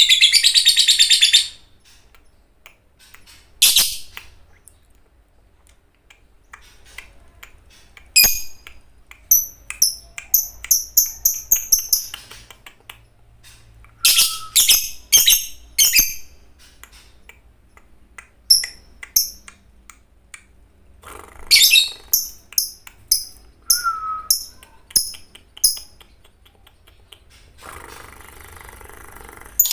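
Lovebird calling: a loud, dense run of shrill chatter that stops abruptly, then bursts of sharp, very high repeated chirps, several a second, with pauses between the bursts.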